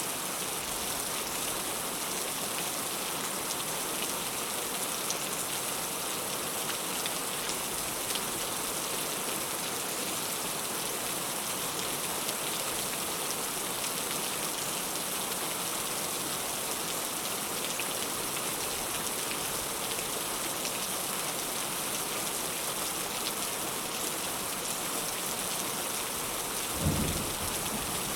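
Heavy rain falling steadily, a dense even hiss with scattered drop ticks. Near the end comes a brief low thump.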